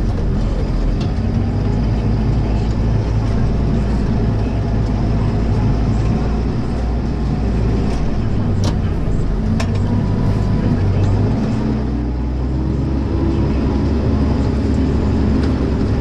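Tractor engine running steadily under load while pulling a mounted reversible plough through the soil. Two short clicks come just past the middle, and the engine note shifts slightly about three-quarters of the way in.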